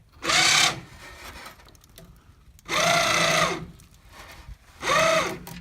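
Battery-powered electric winch run in three short bursts as it hoists a log. Each burst has a whine that rises and then falls as the motor spins up and stops.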